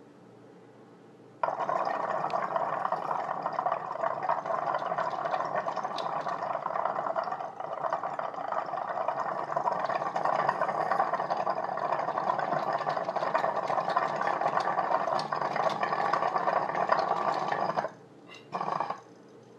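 Water bubbling and gurgling through the percolator of a Steve Bates and Worm glass water pipe as someone draws a long hit through it. It starts suddenly and runs steadily for about sixteen seconds, cuts off, and is followed by a short second pull near the end.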